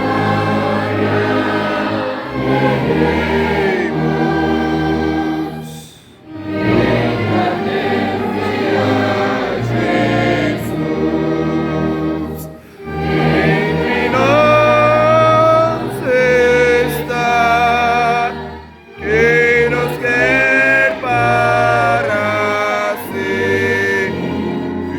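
A choir singing a hymn over instrumental accompaniment, with a tuba holding long low bass notes beneath the voices. The singing comes in phrases with three short breaks between them.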